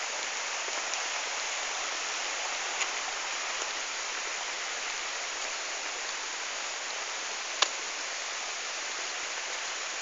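Steady rush of flowing water from a stream, an even hiss with no rhythm. One sharp click about three quarters of the way through.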